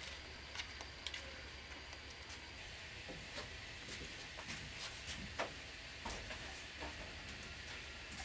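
Faint footsteps of slide sandals, a few scattered light taps, first on a concrete path and then on wooden floorboards, over a steady low background hum.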